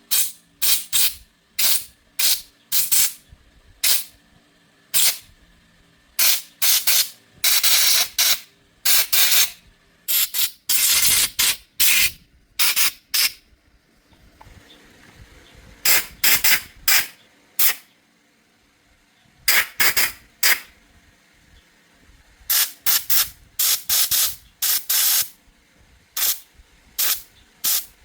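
Pressurised spray hissing in many short trigger bursts, mostly a fraction of a second each with a few longer blasts of about a second, starting and stopping sharply; it pauses for a couple of seconds around the middle and resumes.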